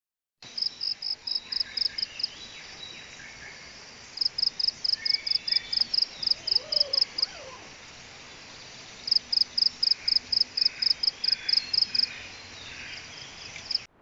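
Animal calls in tropical forest: a high, sharp pulsed call repeated about five times a second, in three bouts of a few seconds each, over a steady background of fainter calls.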